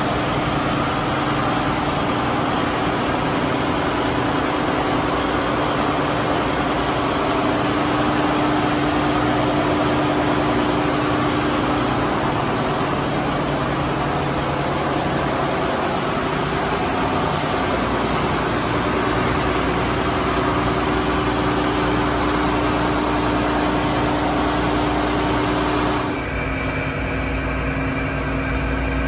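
Ship's diesel generator sets running, a loud steady machinery din with a constant hum and a thin high whine over it. About 26 seconds in it drops suddenly to a quieter, duller machinery hum.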